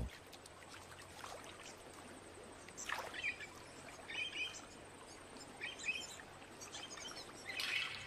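Small birds calling in short chirping phrases, about four spaced bursts, over a faint steady hiss of river ambience.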